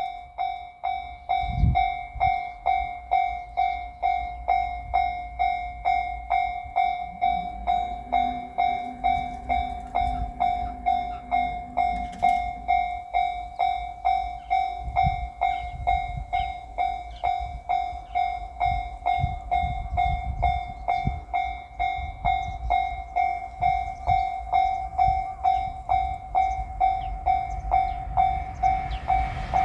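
Japanese railway level-crossing electronic warning bell ringing steadily at about two strikes a second, warning of an approaching train. The rumble of the approaching train starts to build near the end.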